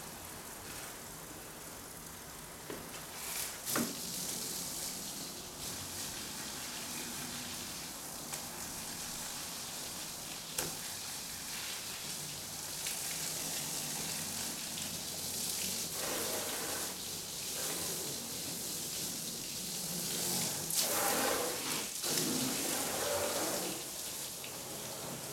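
Garden hose running, its spray hissing and splashing on a car's bodywork and into a wash bucket during a hand car wash, with a couple of sharp knocks and louder bursts of splashing later on.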